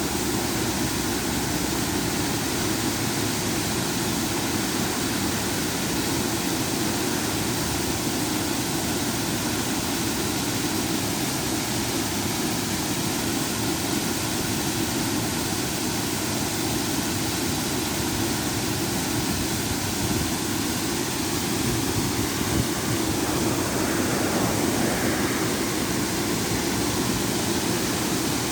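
Small river waterfall: water pouring over a low drop and rushing steadily.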